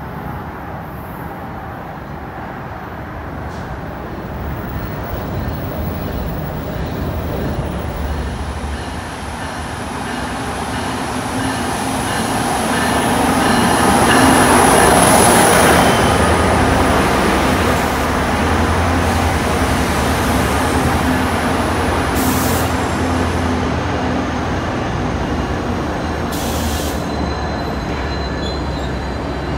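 NJ Transit PL42AC diesel locomotive approaching and passing close by, its engine and wheels building to their loudest about halfway through. Single-level passenger coaches then roll past with a steady rumble.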